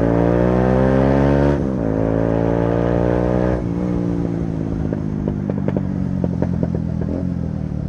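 Bajaj Pulsar motorcycle engine under way, its revs rising and then dropping sharply at a gear change about a second and a half in before climbing again. A few seconds in the throttle eases and the engine gets quieter, with a run of irregular sharp clicks over the steady engine sound near the end.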